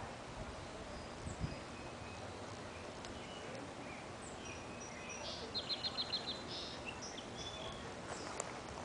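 Small birds chirping over a faint steady outdoor hiss, with a quick run of about six high chirps a little past the middle and a single soft thump about a second and a half in.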